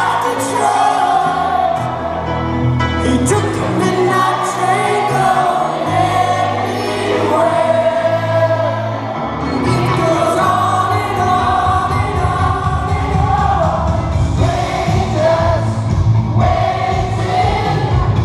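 Music: a song with sung vocals over a bass line.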